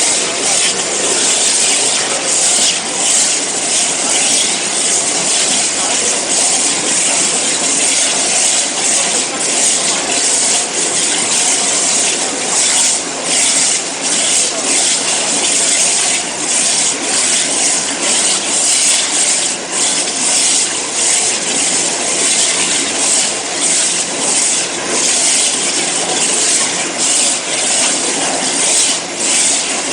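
High-pressure jet of a CNC waterjet cutting machine hissing steadily as it cuts, with small flickers in the level.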